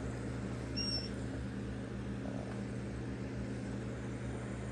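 Small aquarium pump motor humming steadily, a low even drone.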